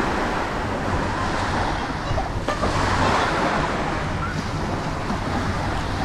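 Steady rushing noise of surf and wind on the shore, with a light click about two and a half seconds in.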